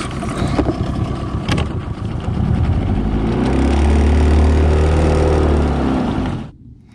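Jon boat's outboard motor running under way, growing louder about two seconds in as it is throttled up, then shut off suddenly near the end.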